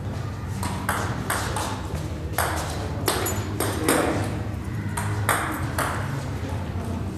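Table tennis balls being hit and bouncing, an irregular run of sharp clicks about two or three a second, over a steady low hum.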